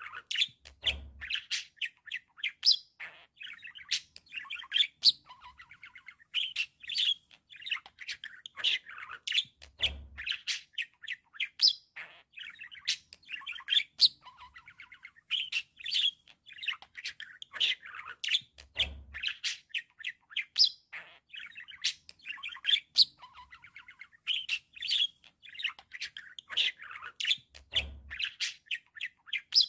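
Budgerigars warbling and chattering: a continuous run of quick chirps, clicks and squeaks.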